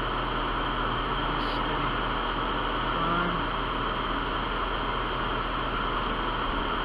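Jeep driving along a dirt trail: steady engine and road noise heard from inside the cab.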